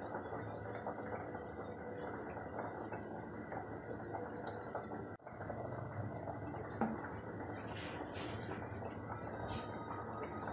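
Milk cooking down over a high flame in a black kadai: a steady low hiss with faint bubbling, and a few short scrapes of a wooden spatula stirring it against the pan.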